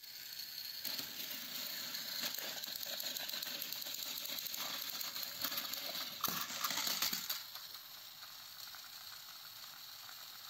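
Battery-powered Plarail toy train motors whirring along plastic track, with rattling and clicking of the wheels and couplings. About six seconds in, the trains clatter as they tip off the track. Afterwards a motor keeps whirring more quietly.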